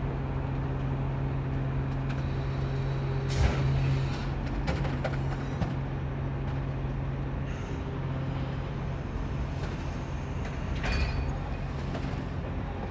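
Steady low motor hum with a few short hissing bursts, about three and a half, seven and a half and eleven seconds in.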